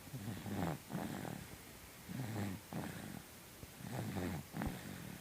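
Snoring: three slow, rough breaths about a second long each, every one in two parts, with a short click near the end.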